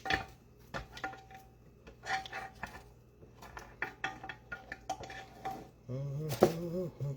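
Metal utensils clinking and scraping against a pan and plate as fried lamb chops are lifted out: scattered sharp clicks, several leaving a short ringing tone. Near the end, a brief pitched voice-like sound.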